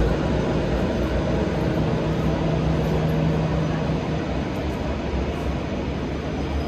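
Jet airliner engines running, a steady rumble with a low hum that slowly fades.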